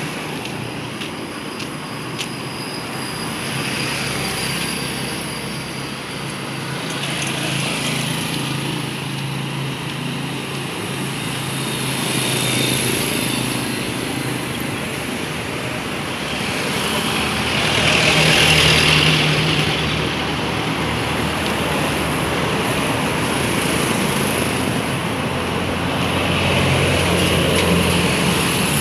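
Roadside traffic with motorcycle tricycles and other vehicles passing one after another, their engines running under a steady hum. Each pass swells and fades, and the loudest comes about eighteen seconds in.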